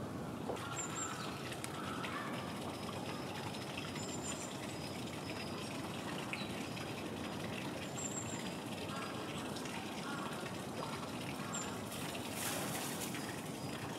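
Steady rushing background noise, like running water, with brief high chirps every few seconds.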